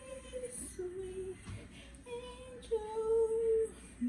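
A woman singing a slow tune in long held notes.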